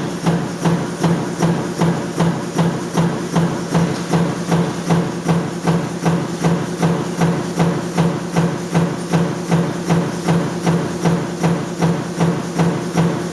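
Power stamping press running steadily, striking about two and a half times a second, with a hum that pulses with each stroke.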